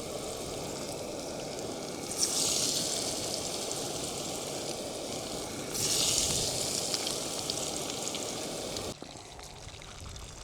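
Breaded food frying in hot oil on a gas camp stove, a steady sizzle that flares up loudly twice, about two and six seconds in, then drops off sharply near the end.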